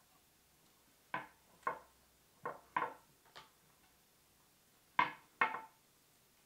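Handling sounds from wrapping paracord around a wooden axe handle: the cord is pulled through its loop and the handle is moved. Seven short sounds, five in quick succession in the first few seconds, then a pair about five seconds in.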